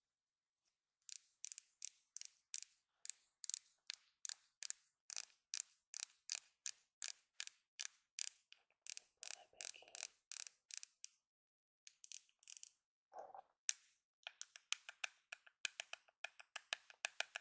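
Quick, sharp clicks from a plastic ChapStick lip balm tube being handled, about three a second, pausing about eleven seconds in and then resuming faster and denser near the end.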